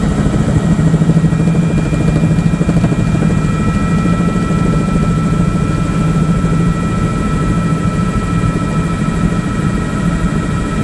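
Helicopter in flight heard from inside: a loud, steady drone of rotor and engine with a fast fine pulsing, and a constant high whine over it.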